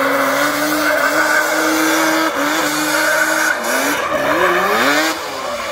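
Quad bike engine held at steady high revs while the tyres skid on asphalt. After about three and a half seconds the revs drop and rise again in quick swoops, and it gets a little quieter near the end.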